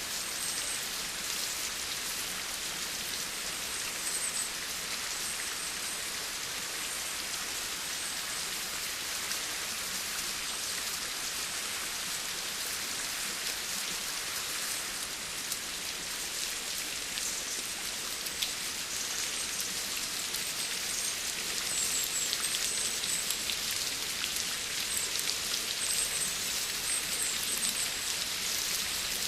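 Steady rain falling: a dense hiss of drops with many small, distinct drop hits. It grows slightly heavier about three-quarters of the way through.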